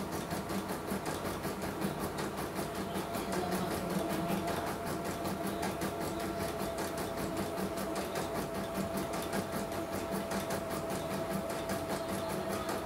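CNY portable computerized embroidery machine stitching steadily, its needle bar going in a rapid, even ticking rhythm; a steady thin whine comes in a few seconds in. The machine is running smoothly on a test run after repair, with no fault heard.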